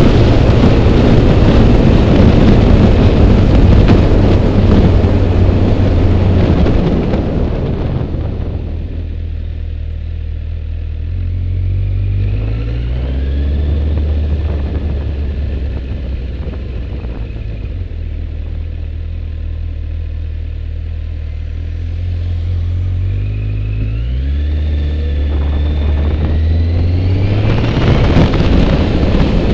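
Motorcycle engine running under way, its note rising twice as it accelerates, with heavy wind rushing over the camera microphone in the first several seconds and again near the end.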